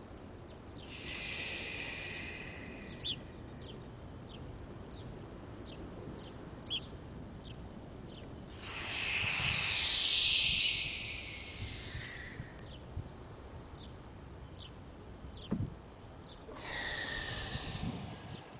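Outdoor ambience: a bird chirping over and over, short high chirps about one or two a second, with three louder swells of rushing noise, the biggest near the middle.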